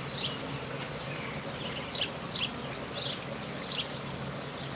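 Honey bees buzzing as they pour out of the hive entrance, a low steady hum that fades near the end. A small bird calls over it with short falling chirps, about one or two a second.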